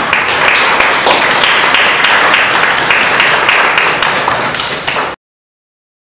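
Audience applauding, a dense run of hand claps that cuts off suddenly about five seconds in.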